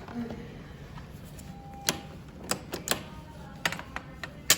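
A series of sharp mechanical clicks and knocks, about seven, irregularly spaced and mostly in the second half, from working a coin-operated quarter vending machine.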